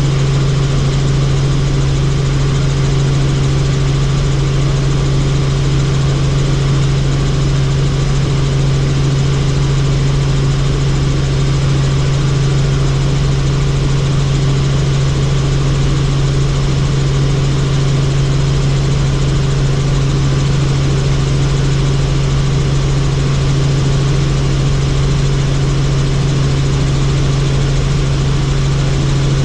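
Helicopter in flight: a loud, steady drone of rotor and engine, with a strong low hum that holds one pitch throughout.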